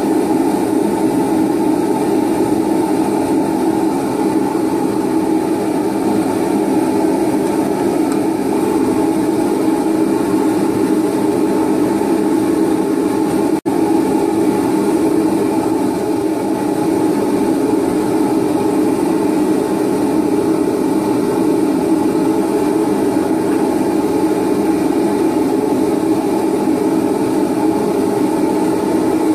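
Homemade three-burner propane forge running steadily at full fire: the burners make a continuous, loud rushing noise. The noise drops out for an instant about 14 seconds in.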